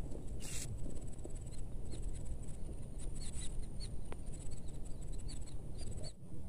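Footsteps and the rustle of weeds as a person walks along a grassy ditch bank and crouches, over a steady low rumble. A brief rustle comes about half a second in, and short high chirps repeat in the background.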